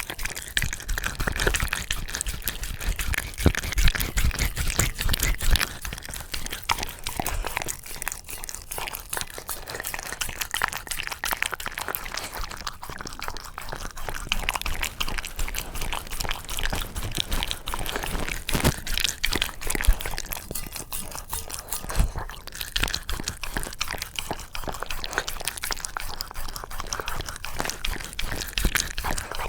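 Shiba Inu eating yogurt with a topping from a bowl: a dense, continuous run of small eating clicks and crunches.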